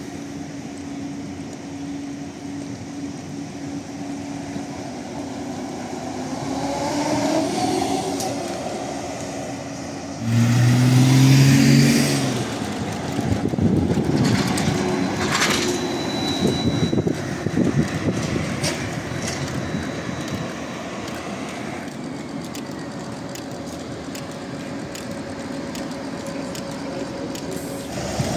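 City buses and electric trolleybuses passing in street traffic. A steady drive whine rises in pitch as a trolleybus pulls away; after a cut, a loud low hum lasts about two seconds before a trolleybus and a bus pass close with tyre and road noise.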